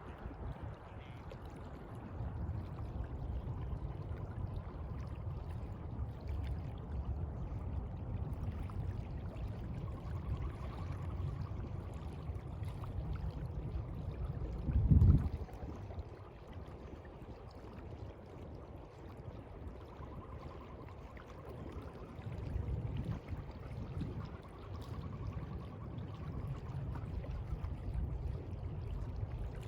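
Sea water lapping and washing steadily, with a deep rumble underneath and one loud low thump about halfway through.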